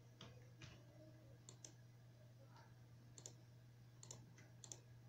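A computer mouse clicking faintly several times, some clicks in quick pairs, over a low steady electrical hum.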